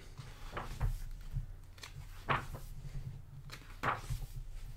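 Pages of a thick hardcover art book being turned by hand: a few short, soft paper rustles.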